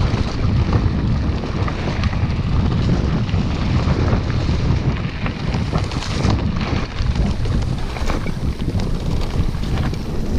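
Wind buffeting the microphone of a camera riding along on a Haibike mountain bike going fast downhill on a dirt trail, mixed with tyre rumble and many short rattling knocks as the bike goes over bumps.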